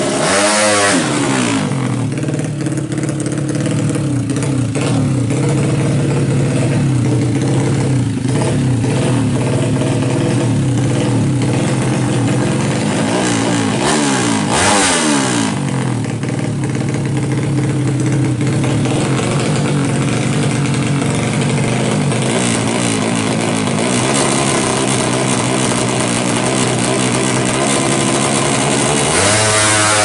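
A Yamaha Jupiter Z's single-cylinder four-stroke engine, bored up to 200cc, runs at a steady fast idle through an open exhaust. The revs drop near the start and dip and pick up again about halfway. Near the end it revs up hard as the bike pulls away.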